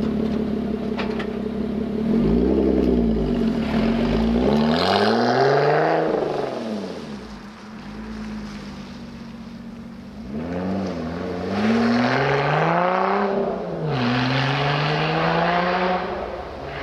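Lotus Evora 400's supercharged 3.5-litre V6 accelerating hard, its engine note climbing and dropping again and again through gear changes. It eases off for a few seconds around the middle, then climbs loudly again from about ten seconds in.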